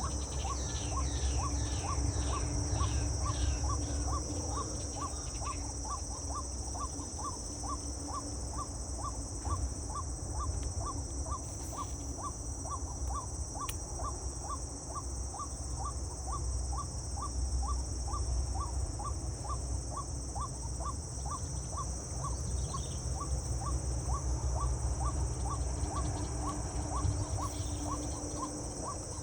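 Steady high-pitched insect drone with a short note repeating about twice a second throughout, and a bird calling in a quick run of notes over the first few seconds, all over a low rumble.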